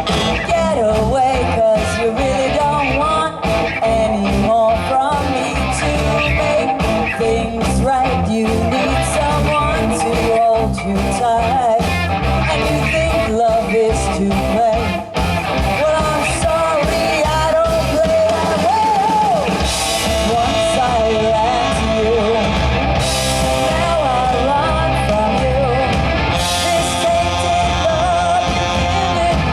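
Live rock band playing loudly, with drums, bass and electric guitar carrying a wavering melodic lead line.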